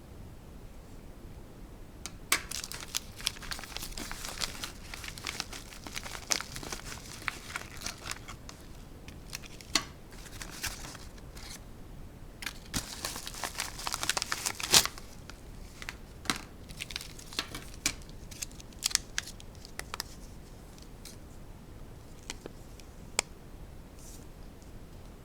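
Packaging crinkling and tearing as it is opened by hand, with irregular sharp clicks and rustles. It starts about two seconds in, is busiest around the middle and thins out near the end.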